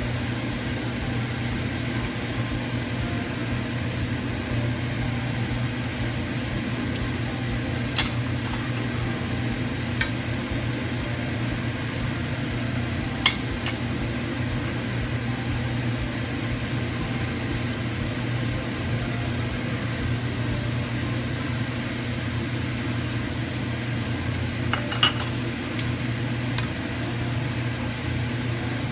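Metal tongs clinking against a nonstick pan a few times while tossing spaghetti, with the sharpest clicks about 13 and 25 seconds in, over a steady low hum.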